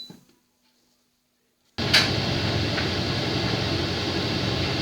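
Hoover Infinity 7 kg vented tumble dryer running near the end of a quick dry cycle: a steady whirring rumble of motor, fan and turning drum that starts abruptly about two seconds in, with a few light clicks.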